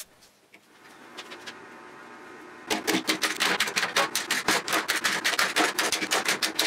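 Rapid clatter of plastic-and-steel bar clamps and spring clamps being released from a glued-up board and dropped onto a wooden workbench. It starts about two and a half seconds in, after a quiet start, and runs as many sharp clicks and knocks a second.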